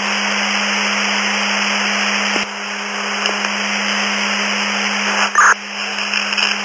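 Police and fire radio scanner hissing with static between transmissions, over a steady hum. The hiss drops a little about two and a half seconds in, and a short crackle comes near the end.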